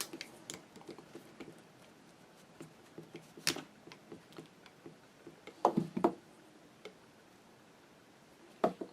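Small metal parts of a sewing machine's hand-crank drive clicking and tapping as a pin is worked out, with a sharp click about three and a half seconds in and a few louder knocks around six seconds and near the end.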